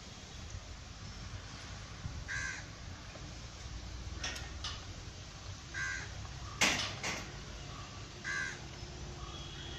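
A crow cawing three times, about three seconds apart. Between the caws there are a few sharp clicks, the loudest about two-thirds of the way through.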